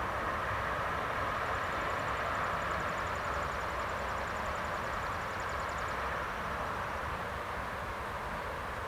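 Steady rumbling background noise with no speech. A faint, rapid high ticking runs from about one and a half to six seconds in.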